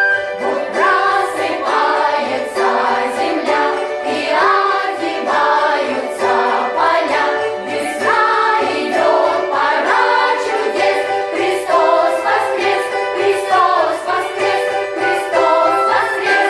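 A vocal ensemble sings an Orthodox Easter song in several voices together, over instrumental accompaniment.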